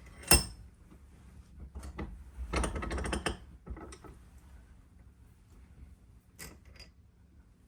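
Metal clanks and rattles of hand tools working a steel washer as it is squeezed into a taco shape: a sharp clank near the start, a quick run of rattling clicks about two and a half seconds in, and a couple of light clicks near the end.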